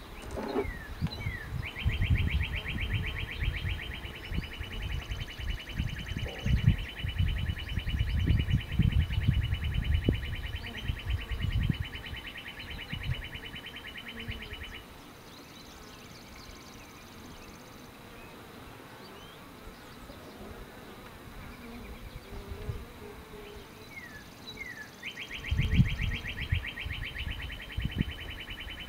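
Wooden hive frames being handled on a Langstroth hive body, giving low, irregular knocks and bumps. Over them runs a fast, even, high trill that lasts about thirteen seconds, stops, and starts again near the end.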